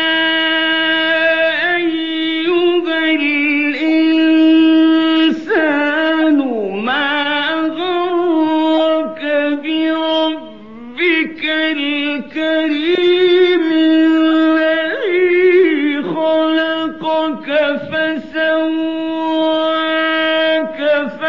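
A male Quran reciter chanting in the melodic mujawwad style: long, ornamented melismatic notes, mostly held on one steady pitch, with quick trills and sweeping glides down and back up, and a few brief breaks for breath.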